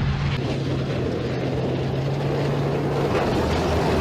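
Steady rush of water washing a plastic toy, with a low steady hum underneath.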